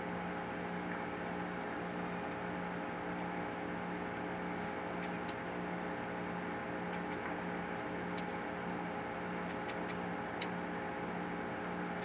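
Steady mechanical hum with several fixed tones over a soft hiss, and a scattering of faint, sharp, very short ticks.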